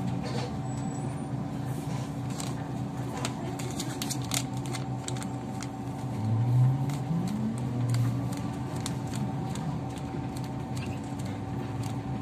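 Inside a Kyiv-12.03 trolleybus under way: steady electric hum with body rattles and clicks. About six seconds in, the motor's whine rises in pitch as the trolleybus accelerates.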